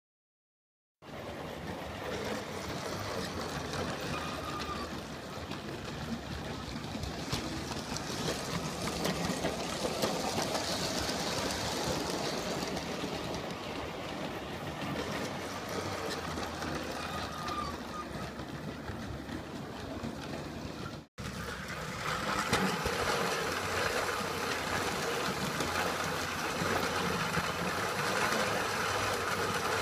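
G scale model train running on its track, a steady mechanical whir and rattle of motor and wheels. It starts about a second in, drops out for an instant about two-thirds of the way through, then carries on a little louder.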